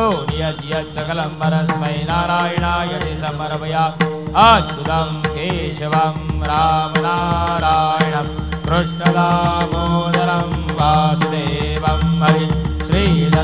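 Devotional aarti singing: a voice with wavering, gliding pitch over a steady drone and a drum beat.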